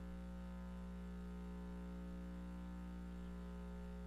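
Steady electrical mains hum with faint room tone, unchanging throughout.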